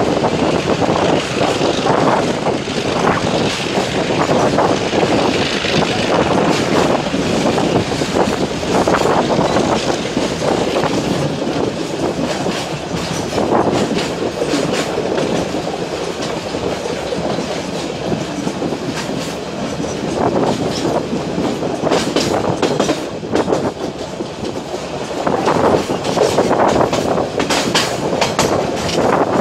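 Train running on metre-gauge track: a steady rumble of rolling wagons with the clickety-clack of wheels over rail joints, the clicks coming thicker over the last several seconds.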